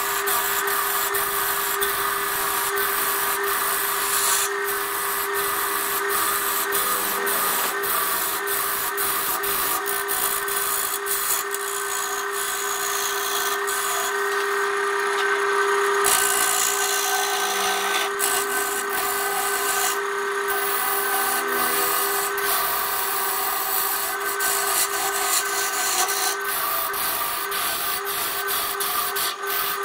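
BURT wood lathe running with a steady motor hum while a hand-held gouge cuts a spinning wooden bowl blank: a continuous rough scraping and hiss of shavings peeling off, with rapid ticks throughout.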